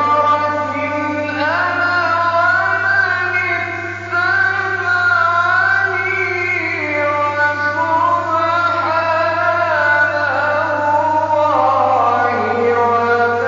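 A male Quran reciter's voice in melodic, chanted recitation, holding long ornamented notes that glide slowly up and down, with a brief break about four seconds in. A steady low hum runs underneath.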